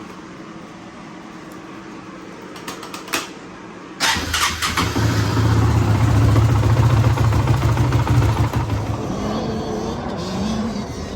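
Honda TRX 450 ATV's single-cylinder engine starts suddenly about four seconds in and runs loudly, its pitch wavering toward the end.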